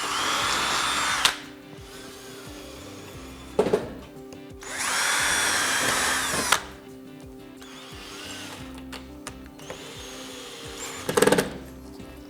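Power drill running in two bursts of about two seconds each, with a steady whine, fastening panel mounting clips; a couple of short knocks fall between the bursts.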